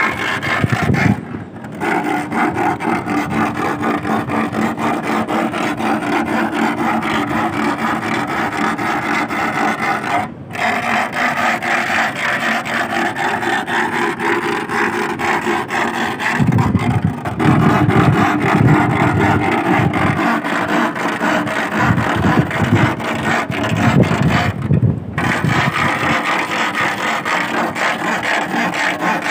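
A steel rod rasped back and forth against a wooden stake driven into the seabed: a continuous grating scrape of rapid strokes, with a few brief breaks. The noise and vibration are meant to make sea worms (sasing) come up out of the sand by themselves.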